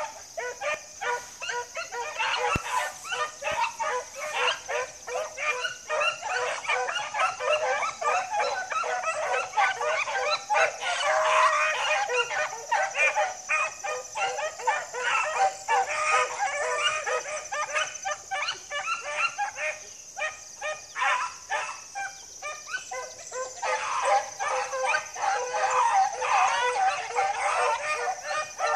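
A pack of beagles baying together, many voices overlapping without a break, the steady cry of hounds running a scent line.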